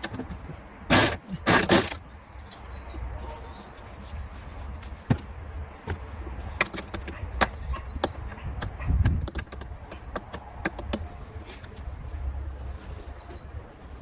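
Scattered sharp clicks and knocks of hand work on a car's wiper assembly, with two louder clatters about a second in. Birds chirp a few times in the background over a steady low rumble.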